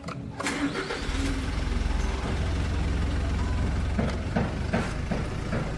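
A motor running steadily with a low hum for about three and a half seconds, starting about a second in, followed by a few short knocks.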